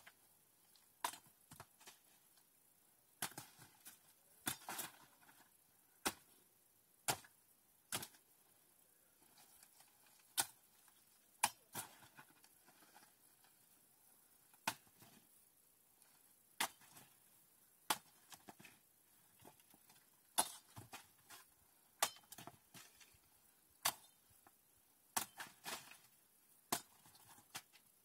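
Hoe chopping repeatedly into thorny brush and soil: sharp, irregular strikes, about one a second, some in quick pairs.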